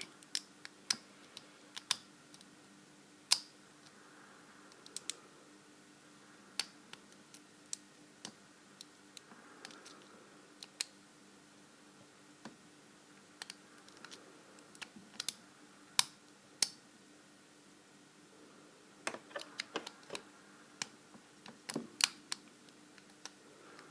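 Lock pick working the pins of an Abus 72/40 aluminium padlock: small, sharp metallic clicks at irregular intervals, bunching into quick runs in the last few seconds, over a faint steady hum.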